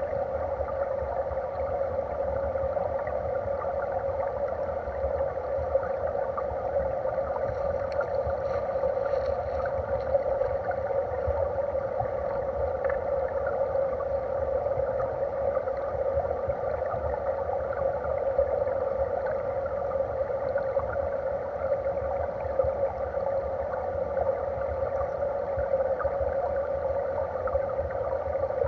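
Stream water heard through an underwater camera: a steady rush with a fine crackle of bubbles over a low rumble.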